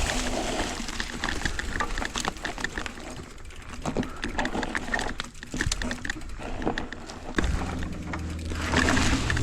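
Footsteps crunching and scraping over loose rock and gravel at a walking pace, with brush rustling against the phone. A steady low hum comes in about seven seconds in.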